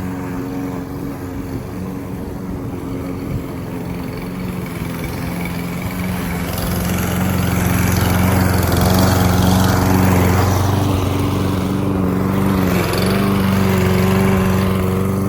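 Pull-start gas lawn mower engine running steadily while cutting grass, getting louder about halfway through.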